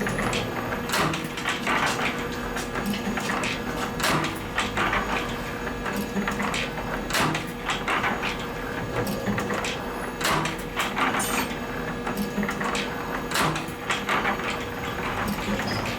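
Spring-making machine running: a steady hum under irregular mechanical clacks, about one or two a second.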